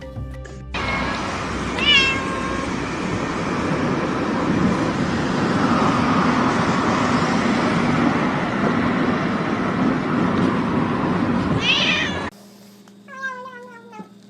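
Domestic cat meowing: a short meow about two seconds in and another near twelve seconds, over a loud, steady rumbling noise. After a sudden cut, another cat gives a single meow that falls in pitch.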